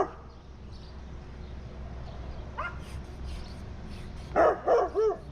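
A dog whining: one short rising cry about halfway through, then a quick run of short rising-and-falling cries near the end, over a steady low hum.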